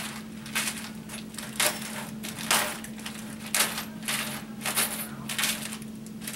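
Box cutter slitting open the cells of a plastic blister pack of hardware: a string of irregular crinkling, crackling plastic sounds and small metal parts clicking inside, roughly two a second.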